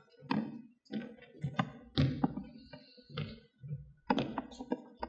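Footsteps and small knocks as a man walks across a stage to a lectern: a run of irregular thuds and clicks, about two a second.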